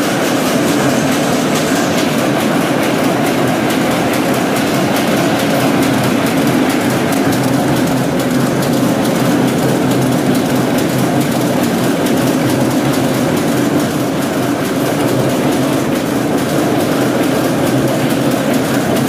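Velvet rapier loom with electronic dobby running at speed: a loud, steady, fast, even mechanical clatter.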